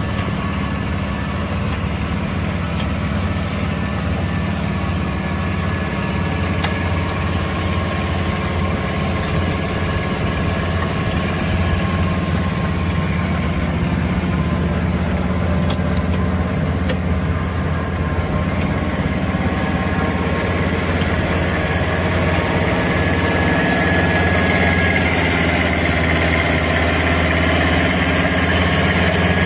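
Engine of a farm machine running steadily, getting slightly louder toward the end.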